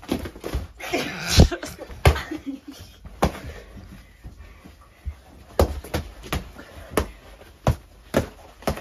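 Padded boxing gloves landing punches on bare bodies: a string of irregular sharp smacks and thuds, coming in quick clusters in the second half. A few short voice sounds come near the start.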